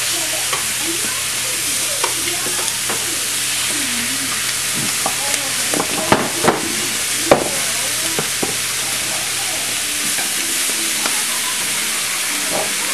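Seasoned chicken thighs sizzling steadily on a very hot flat griddle pan as they go down skin side first. A few sharp clacks of the metal tongs come partway through.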